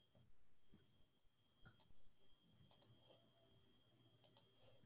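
Faint clicking at a computer: a handful of short, sharp clicks, two of them in quick pairs.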